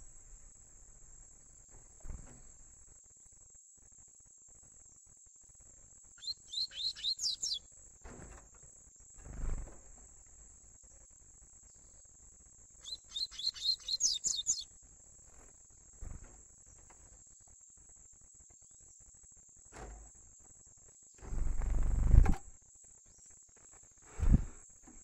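Young double-collared seedeater (coleiro) singing two short bursts of its tui-tui song, each a quick run of high repeated notes, over a steady high insect trill. Near the end come a few low thumps and a louder low rumble about a second long.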